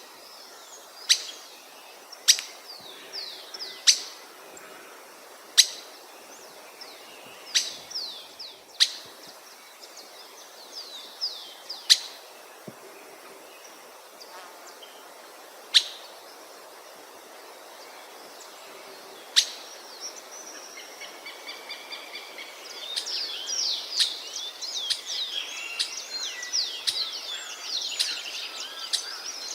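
Wild birds singing: sharp, loud single call notes every one to four seconds, between runs of quick falling notes. From about two-thirds of the way in, several birds sing at once in a denser chorus.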